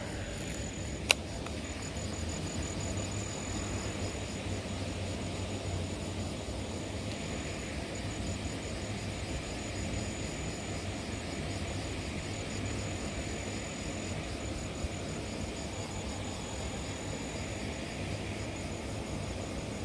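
Insects chirping in a fast, even, high-pitched pulsing trill over a steady low background rumble, with one sharp click about a second in.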